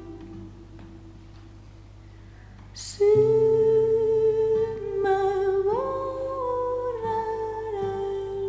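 Music track: quiet fading notes for about three seconds, then, after a breath, a wordless voice holds long humming notes that step up in pitch and come back down.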